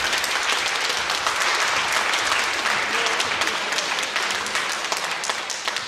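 Audience applauding, dying down to scattered claps near the end.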